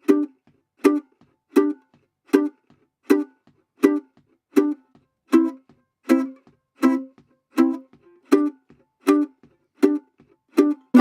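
Background music: short plucked notes in an even, steady pulse, about four every three seconds, with a held chord beginning right at the end.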